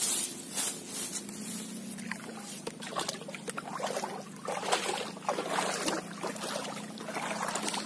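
Irregular scuffs and rustles of someone walking through roadside grass and weeds, over a steady low hum.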